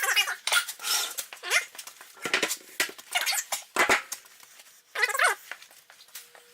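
A dog whining and grumbling in short, irregular bursts whose pitch slides up and down.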